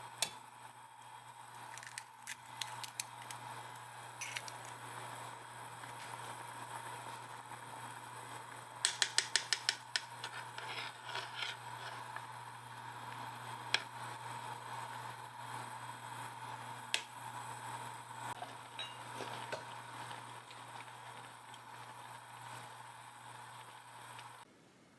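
Kitchen utensil clicks and scrapes over a steady low hum. About nine seconds in comes a quick run of about eight clicks in a second, like an egg being beaten in a bowl for the soup.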